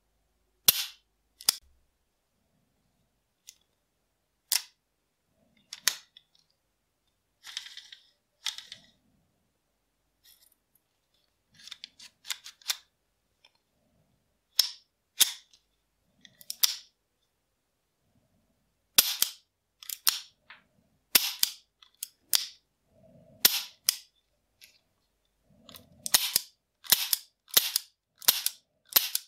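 Restored Astra Cadix .38 Special revolver being worked by hand: sharp metallic clicks of the action as the cylinder is turned and the hammer is cocked and snapped, dry, without firing. The clicks are sparse at first and come quicker and louder in the last few seconds, about two a second.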